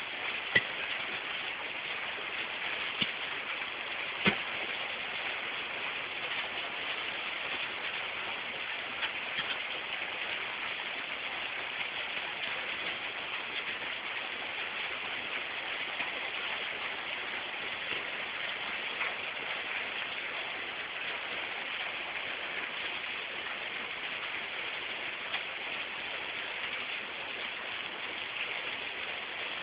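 Heavy hailstorm: a steady hiss of rain and hail coming down, with a few sharp clicks of hailstones striking hard surfaces, the loudest within the first five seconds.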